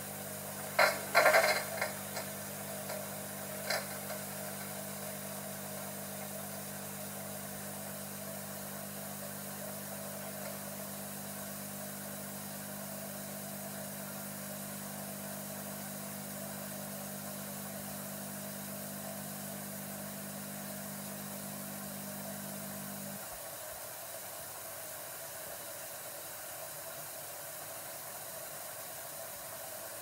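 Smeg DWAU157XT dishwasher running: a steady motor hum under a hiss of spraying water, with a few knocks near the start. The hum stops about 23 seconds in while the water hiss goes on.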